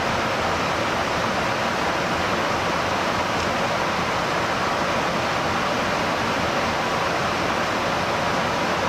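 Steady, even rushing noise of an aircraft in flight, airflow and engine noise blended together, heard aboard a tanker aircraft.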